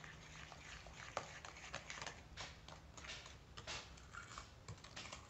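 Metal spoon stirring and scraping a soft mix of cream, egg and sugar in a glass bowl: faint, irregular scrapes and light taps against the glass.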